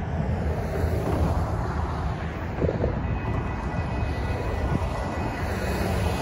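Steady low rumble of passing road traffic and wind on the microphone. About halfway through, a railroad crossing's warning bell starts ringing as the crossing signals activate for an approaching train.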